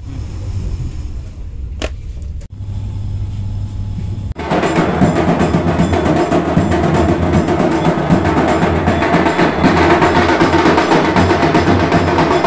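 Loud, fast drumming that begins abruptly about four seconds in, after a quieter stretch with a low hum.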